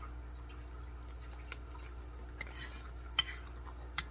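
Faint wet chewing and mouth sounds from eating a soft, gravy-laden meal, with two light clicks of a spoon against a ceramic plate about three seconds in and near the end.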